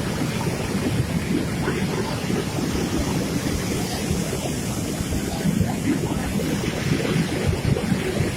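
Floodwater rushing in a swollen river: a steady, dense, low-pitched wash of turbulent water, with wind buffeting the microphone.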